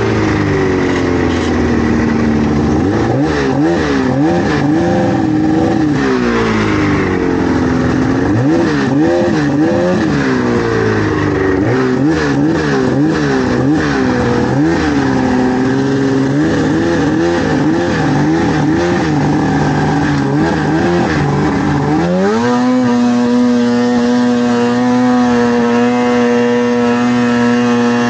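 Polaris two-stroke snowmobile engine revving up and down over and over as the throttle is worked. About three-quarters of the way in it climbs to a steady high pitch and holds wide open. Scattered sharp knocks come in the first part.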